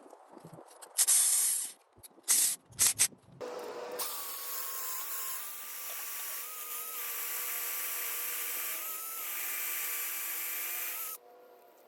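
A few short hissing bursts, then a power drill with a carbide-tipped bit runs steadily for about seven seconds with a constant motor whine and the grinding hiss of the bit cutting, and stops abruptly.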